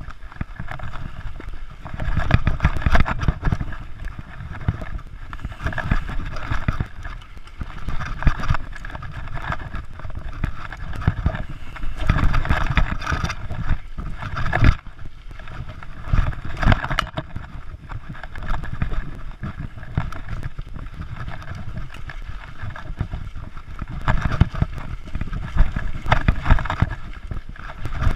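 Mountain bike riding over a rough dirt trail: the bike rattles and knocks over bumps, with tyre noise on the ground and wind buffeting the microphone.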